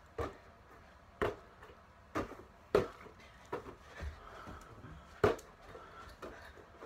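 Irregular knocks and thumps, about eight of them spaced half a second to a second apart, from a small ball being tossed and caught hand to hand and bodies moving on the floor during a game of catch.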